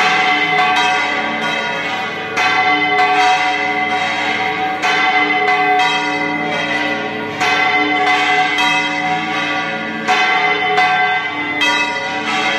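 Church bells ringing, a new stroke about every two and a half seconds, each one ringing on over the last.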